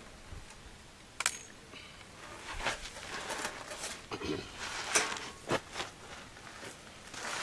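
A handful of sharp, irregular clicks and knocks amid rustling: handling noise.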